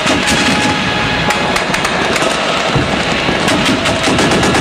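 Loud, rapid gunfire, machine-gun style, with shots following one another without a pause.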